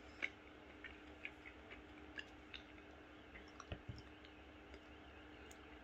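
Faint chewing of food, with scattered small mouth clicks and one louder knock a little past halfway, over a steady low hum.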